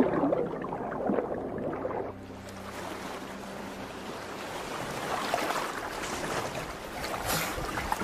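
Background music ending about two seconds in, followed by a steady wash of sea and wind noise that grows a little louder toward the end, with a few sharp gusts near the end.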